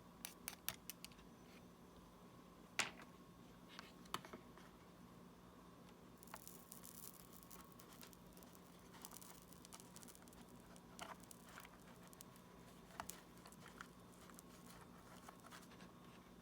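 Faint, scattered clicks and light scratching of small hand tools working on the parts of a Galaxy Gear S3 smartwatch during a button repair, the sharpest click about three seconds in, over a steady low hum.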